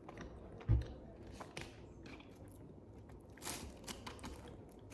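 A person chewing and biting into pizza close to the microphone: soft mouth clicks and crunches, with a low thump about a second in and a louder crunch about three and a half seconds in.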